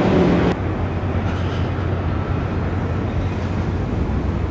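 Steady low rumble of distant engines with a low hum running under it. A louder hiss cuts off suddenly about half a second in.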